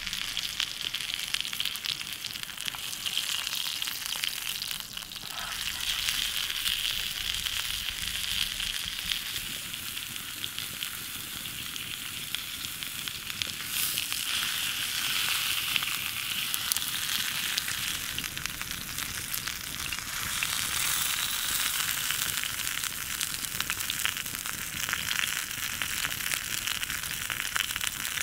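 Bone-in ribeye steak sizzling in a hot skillet over a wood campfire, a steady frying hiss full of fine spattering ticks.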